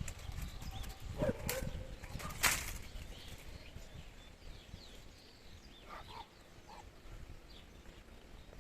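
Outdoor nature sounds with animals: a short low call, two sharp knocks about a second and a half and two and a half seconds in, and faint high chirps.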